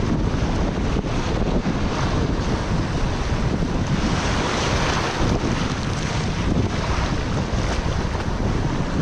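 Sea surf washing and breaking over shoreline rocks, with wind buffeting the microphone. Steady and loud, swelling as waves come in.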